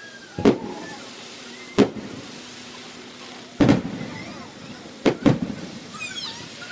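Aerial fireworks shells bursting: five sharp booms, the last two close together about five seconds in.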